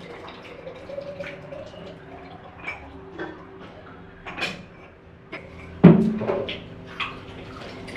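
Water poured from a plastic jug into a bottle, the pitch of the filling rising over the first couple of seconds. Scattered clinks and knocks of kitchenware follow, with one louder clunk about six seconds in.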